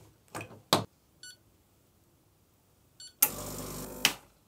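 A couple of small knocks, then two short electronic beeps, then a Gaggia Classic espresso machine's vibratory pump starting up with a loud buzz and cutting off after under a second.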